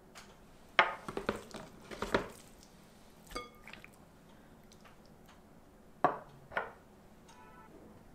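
Small glass seasoning jar and glass dish tapping and clinking against a glass mixing bowl in a few clusters of light knocks, with one clink a little past three seconds that rings briefly.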